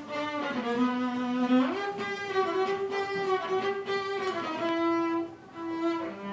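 Background music: bowed strings playing a slow melody of long held notes that step from pitch to pitch.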